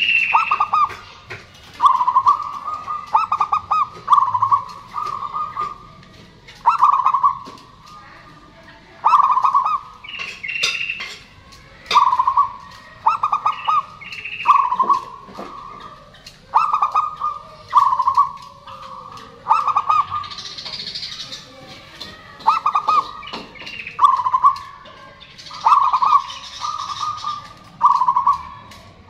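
Zebra dove (perkutut) cooing: a quick, stuttering coo phrase repeated about every one and a half seconds. Higher chirps come in a few times.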